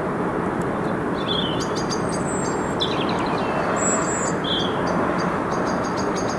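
Small birds chirping in short high calls and brief trills, clustered over a few seconds, over a steady low rushing background noise.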